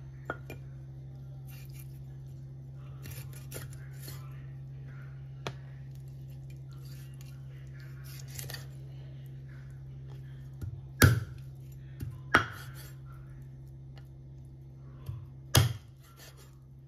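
Cleaver chopping through a raw chicken wing onto a wooden chopping board. A few light cuts and taps come first, then three heavy chops in the last six seconds, each a sharp knock on the wood, over a steady low hum.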